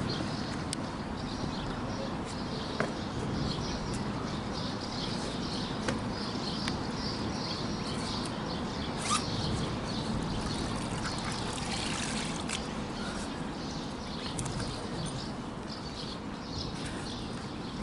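Water sloshing and splashing around a carp weigh sling as it is lowered into shallow river water, with a few light knocks, over birds chirping steadily.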